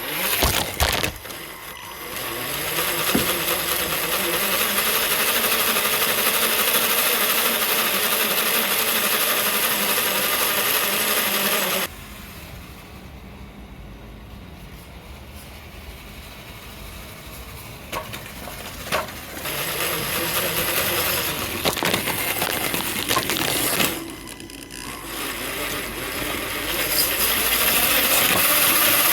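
Tamiya Bruiser RC truck being driven: its electric motor and three-speed gearbox whir, with rattling from the chassis and tyres on the ground. The noise drops suddenly about twelve seconds in and builds again later.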